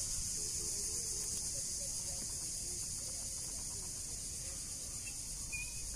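Steady, high-pitched chorus of insects droning without a break, with a faint low rumble underneath.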